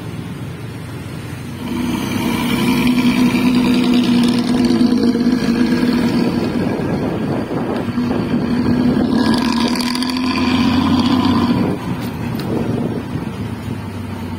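City bus's diesel engine through a loud, tinny 'cempreng' exhaust as the bus pulls away. It comes up sharply about two seconds in, eases briefly around eight seconds, comes up again, then drops back near the end.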